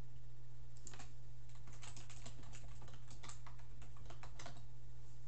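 Computer keyboard typing: a run of quick key clicks from about a second in until shortly before the end, over a steady low hum.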